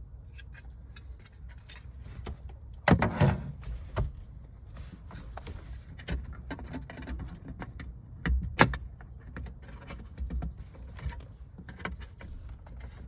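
Hands working plastic interior trim loose from its clips: irregular clicks, knocks and rattles. The loudest is a clatter about three seconds in, and two sharp clicks come a little past eight seconds.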